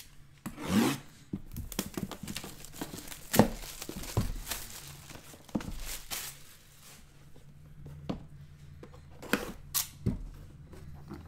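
Plastic shrink wrap being torn and crinkled off a sealed cardboard trading-card box, with sharp crackles and knocks as the box is handled and its lid lifted; the loudest snap comes about three and a half seconds in.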